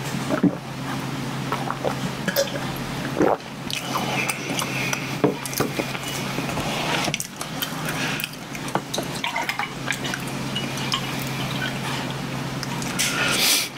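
Milk poured from a paper carton into a glass near the end, after scattered small clicks and knocks.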